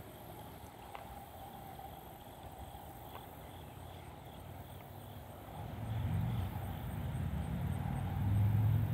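Quiet outdoor ambience, with a low rumble that rises about six seconds in and grows louder toward the end.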